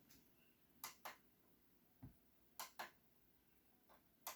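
Faint, short clicks of the Asus VA24DQ monitor's menu buttons being pressed, about seven in all, several in quick pairs.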